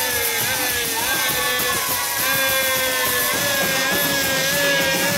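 Live stage music: long held notes that waver and step in pitch, with no clear drumbeat.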